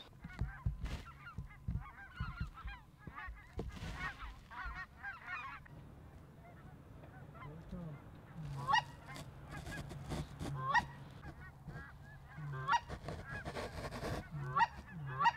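A flock of snow geese calling overhead: many overlapping high honks, then louder, more separate calls from about eight seconds in as the flock comes nearer.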